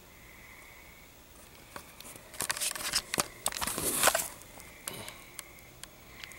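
Handheld camera handling noise: rustling, rubbing and sharp clicks and knocks as the camera is swung around in the hand, loudest from about two and a half to four seconds in, followed by a few single clicks, over a quiet room.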